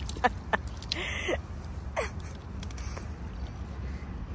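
Large carp thrashing in shallow water at the bank, its tail slapping and splashing in a few sharp bursts in the first second and a half. A short gasp about two seconds in, over a steady low rumble.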